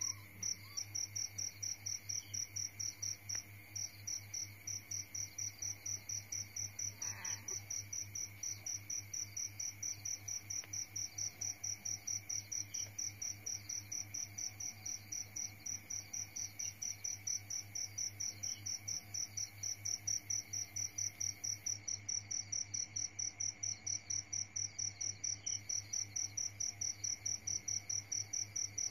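A cricket chirping steadily, about three high-pitched chirps a second, over a low steady hum.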